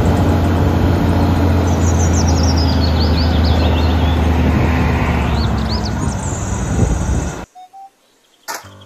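Diesel engine of an eight-wheel tipper truck running steadily with a low hum while the hydraulic tipper body rises, with birds chirping over it. The sound cuts off suddenly about seven and a half seconds in.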